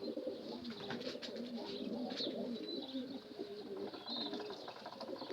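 Domestic pigeons cooing, a continuous run of low, overlapping coos from several birds, with a few brief high chirps mixed in.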